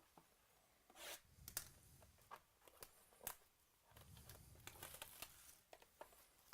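Faint crinkling and tearing of trading-card packaging being opened by hand, with scattered sharp clicks and rustles, busiest in a run near the middle.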